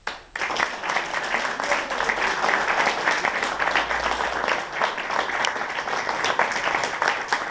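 Audience applause that breaks out suddenly just after the start and then goes on steadily as dense clapping.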